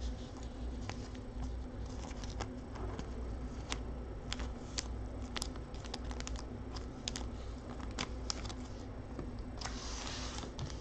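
Trading cards being handled on a tabletop: scattered light clicks and taps as cards are moved and set down, with a short rustle about ten seconds in.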